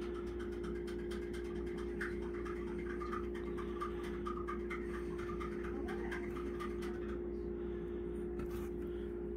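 Steady low electrical or appliance hum in a small room, with faint, indistinct sounds in the background.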